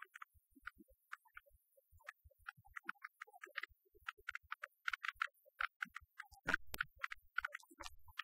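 Film score music made of sparse, short electronic notes, ticking out at irregular intervals.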